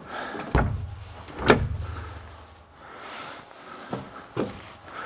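A door shutting: a heavy thud about half a second in, then a sharp click about a second later, followed by a few fainter knocks.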